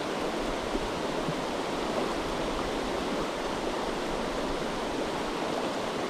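Mountain trout creek rushing over rocks: a steady, even wash of flowing water.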